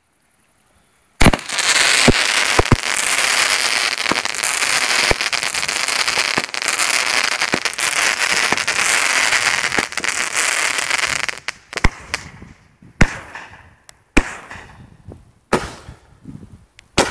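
Fireworks going off: a sharp bang about a second in, then about ten seconds of dense crackling and hissing, which dies away into scattered single pops and bangs.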